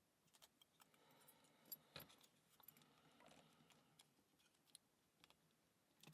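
Faint, scattered metallic clicks and ticks of thin lock shims being worked into a cross lock cylinder, with two sharper clicks about two seconds in.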